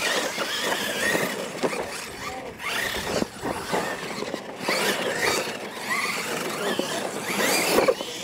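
Two Losi LMT electric R/C monster trucks racing: their brushless motors and gears whine, rising and falling in pitch again and again with the throttle, over the rough scrabble of tyres on dirt.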